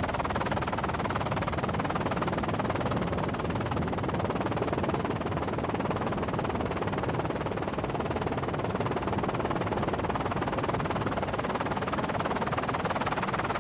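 Steady helicopter noise, engine and rotors mixed with wind, holding an even level without change.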